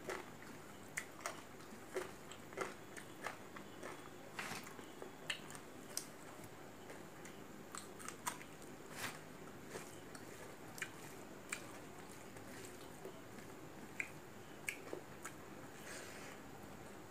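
A person chewing and biting food, with short crisp crunches and mouth clicks about once or twice a second.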